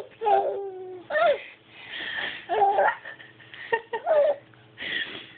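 Baby laughing in several short vocal bursts with breathy gasps between them.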